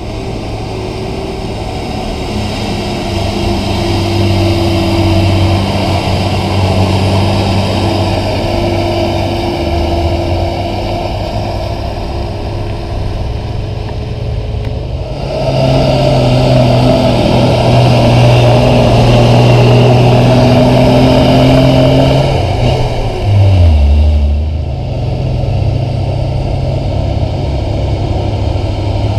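Heavy diesel Hino coal-hauling dump trucks running along a haul road, their engines holding a steady note. The engine noise grows louder in the middle as a truck comes close, then the note drops sharply about two-thirds of the way through before settling into a lower steady run.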